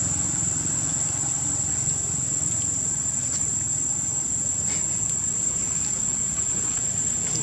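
Insects droning in the forest: one steady, unbroken high-pitched buzz over a low steady rumble.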